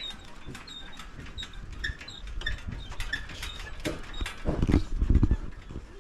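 Hanging footbridge creaking and clicking under someone's footsteps, with a few louder low thuds near the end.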